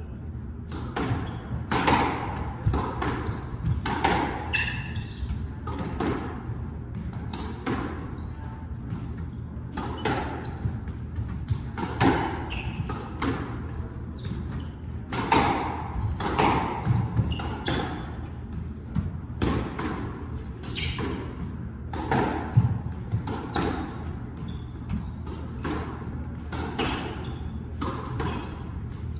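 Squash rally: the rubber ball cracking off rackets and the court walls in an irregular back-and-forth, roughly one hit a second, each hit echoing briefly in the court.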